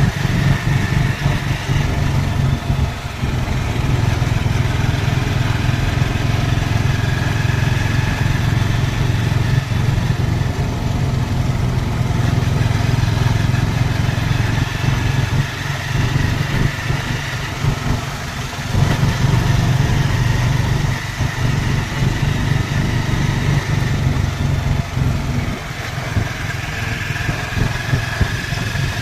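Motorcycle engine running steadily while riding, with a brief dip in level about eighteen seconds in.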